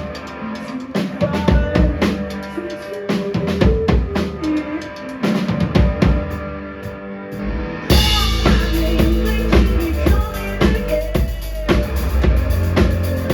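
Live rock band playing, driven by a drum kit with bass drum and snare, over held instrument notes. About eight seconds in the band kicks into a louder, fuller section with heavy bass.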